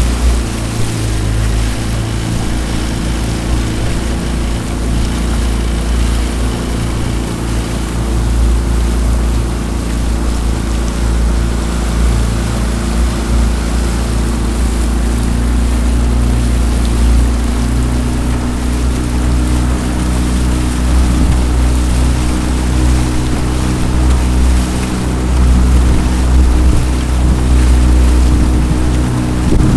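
Jon boat's outboard motor running at a steady speed under way, over a low rumble of wind and water.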